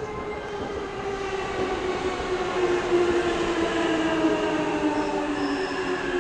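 Electric train's traction motors whining, several tones sliding slowly down in pitch as the train brakes, over the rumble of the wheels on the rails.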